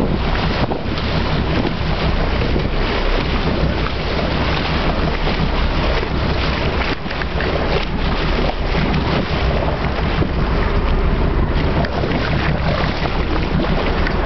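Wind buffeting the microphone on a sportfishing boat, over a steady low engine drone and rushing sea water.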